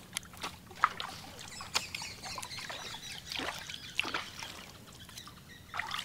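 Water trickling and dripping, with a few short separate splashes, as a gillnet is handled at the side of a canoe.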